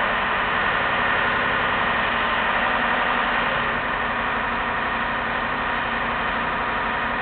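A machine running steadily with a dense, engine-like drone.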